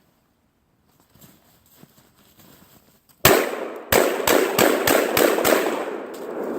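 Saiga 12 semi-automatic 12-gauge shotgun firing birdshot: about seven shots, the first a little past three seconds in, then a quick string of about three shots a second, each with a long echoing tail.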